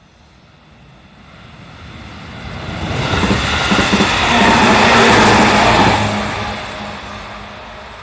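JR Central electric commuter train passing close by on the line, its traction motor hum and the rush of wheels on the rails building up, loudest about five seconds in, then fading as it moves away.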